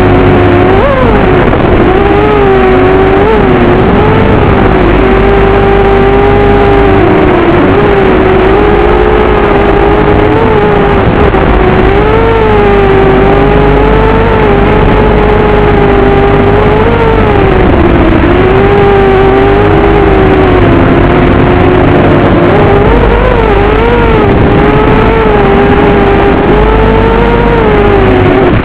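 FPV racing quadcopter's electric motors and propellers whining loudly and continuously, the pitch rising and dipping again and again with throttle changes.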